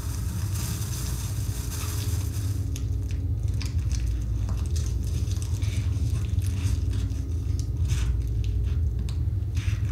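A steady low rumble with scattered crackling and crunching sounds, which begin about three seconds in.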